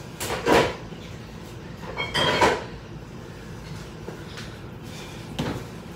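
Kitchen cupboard doors opening and closing while bottles and jars are moved about: three short knocks and clatters, about half a second in, around two seconds in with a brief clink, and near the end.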